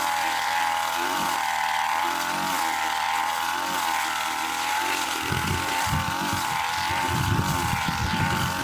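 Tiger TG328 brush cutter's small two-stroke engine running steadily at high revs, its pitch wavering slightly. From about halfway, a rough, irregular crackling joins the engine.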